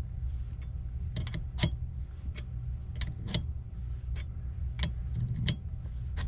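A 9/16 metal wrench clicking and ticking on the adjusting bolt of a brass water pressure reducing valve as the bolt is turned clockwise a little at a time, compressing the valve spring to raise the water pressure. There are about ten sharp, irregular clicks over a steady low rumble.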